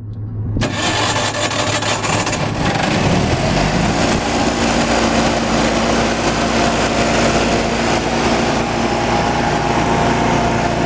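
Lincoln Ranger 8 engine-driven welder-generator started up: a sudden burst of noise under a second in as it cranks and catches, then its engine settles after about three seconds into steady running.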